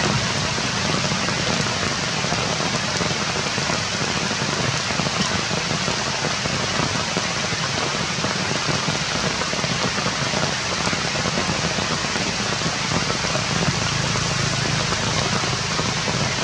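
Steady rain falling on forest leaves, an even hiss with no pause.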